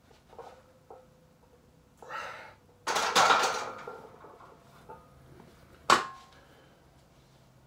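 A barbell loaded to 275 lb set back into the power rack's steel hooks: a hard exhale, then a loud metal clank with rattling and ringing about three seconds in. A second sharp, ringing metal clank comes near six seconds, with a few light knocks around it.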